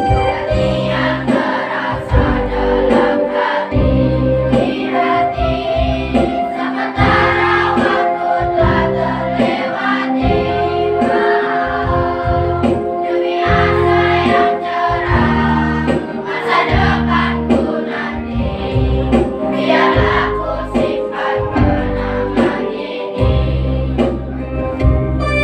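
A choir of sixth-grade schoolchildren singing together over an electronic keyboard accompaniment with a steady bass pulse.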